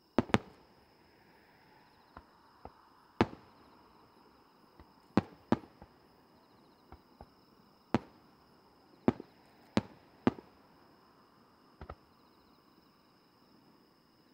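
Aerial fireworks going off: a string of sharp bangs at irregular intervals, some loud and some faint. Steady high-pitched insect chirping runs underneath.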